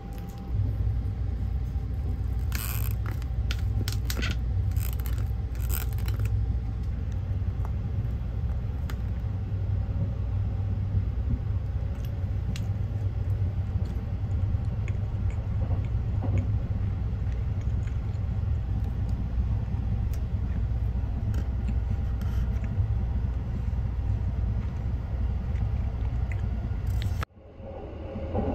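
Steady low rumble of the Sunrise Seto sleeper train running, heard from inside the compartment. A few sharp light clicks come about three to six seconds in, and the rumble drops out briefly near the end before the train noise returns.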